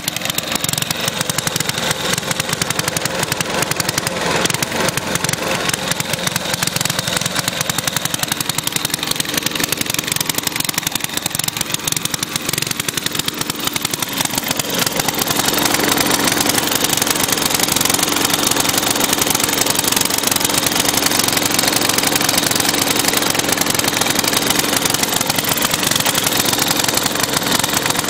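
1963 Genoa riding lawn mower's small engine running loud, with a rapid, sharp exhaust beat. It grows louder about halfway through and holds there.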